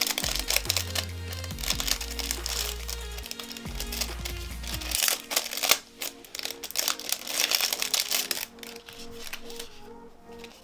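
Background music with a steady bass line, over the crinkling and clicking of packaging being handled; the crinkling dies down near the end.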